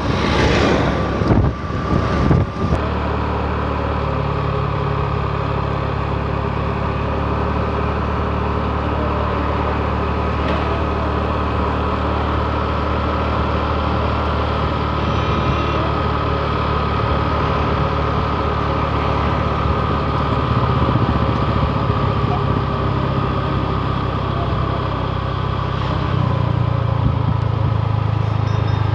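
Engine of a moving road vehicle running steadily with a low drone, heard on board. A burst of rustling and knocks in the first few seconds.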